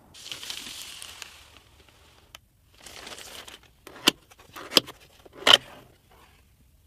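Crinkly plastic packaging handled in two short spells of rustling, then three sharp clicks about two-thirds of a second apart, the last the loudest.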